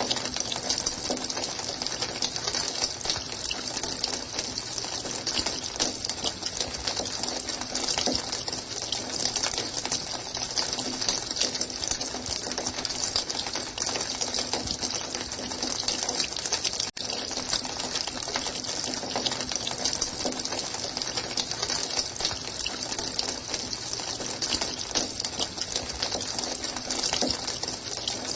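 Running water: a steady, even rush of flowing, splashing water, with a bright hiss. It drops out for an instant about two-thirds of the way through.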